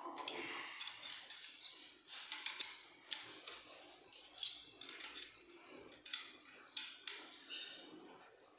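Irregular small metallic clicks and clinks from a steel stirring shaft and paddle being turned by hand and seated in the chuck of an electric putty mixer. The motor is not running.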